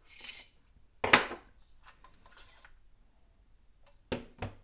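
Handling of a precision electric screwdriver and its case: a brief rub, one sharp click about a second in, and two knocks in quick succession near the end.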